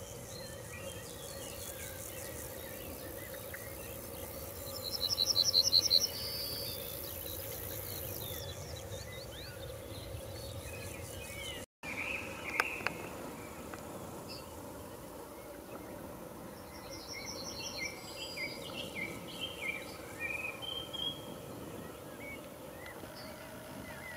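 Summer field ambience of insects and birds: a steady high insect hiss, a short, loud pulsed trill about five seconds in and again weaker later, and scattered short bird chirps in the second half.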